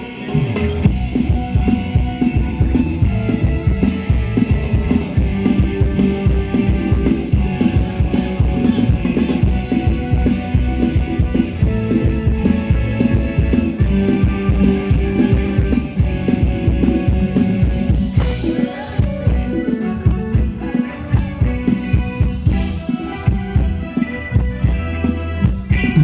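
Thai ramwong dance band music played loudly through the PA, with a steady drum-kit beat under bass and melody instruments.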